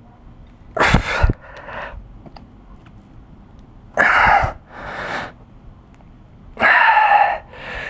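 A man breathing forcefully while straining through curls against band resistance. There is a hard exhale on each lift and a quieter inhale on the way down, three reps about three seconds apart.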